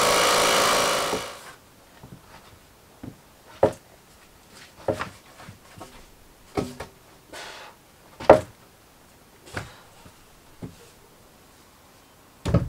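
An engine runs steadily and stops about a second in. Scattered wooden knocks and clunks follow at irregular intervals, the loudest near the end, as larch roof rafters are handled and fitted.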